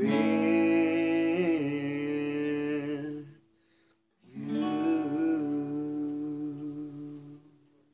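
Acoustic guitar with a man singing the song's final phrase in two long held notes. The first stops about three seconds in, and the second starts a second later and fades out near the end.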